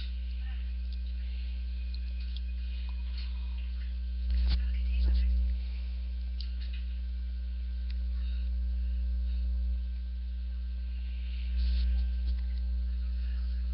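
Steady low electrical mains hum, with a few faint clicks and a sharper click about four and a half seconds in, and soft low bumps around five seconds and near the end.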